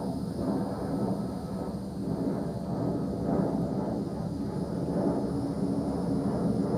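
Low flyover of an E-8 JSTARS, a four-engine Boeing 707-based jet: a steady, loud rumble of jet engine noise.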